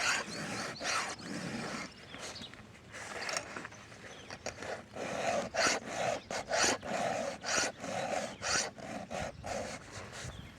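Hand file rasping across the cutter teeth of a chainsaw chain in short, even strokes, a few a second, as the teeth are sharpened.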